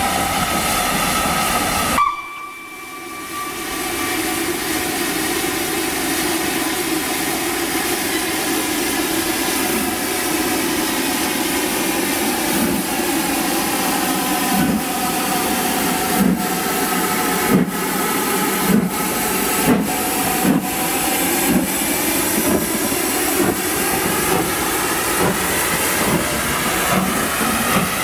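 LNER B1 class two-cylinder steam locomotive hissing steam. About halfway through its exhaust chuffs start, coming steadily quicker as it pulls away.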